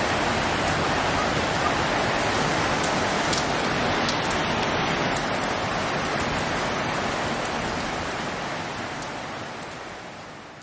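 A steady, even hiss like falling rain, with a few faint ticks, fading out over the last three seconds or so.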